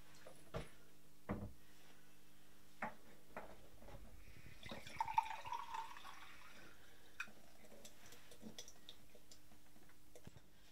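A few light knocks and clinks as a drinking glass is handled at a kitchen cupboard, then a kitchen tap runs briefly into the glass, filling it, about four and a half seconds in. A few more small clicks follow as the glass is set and lifted.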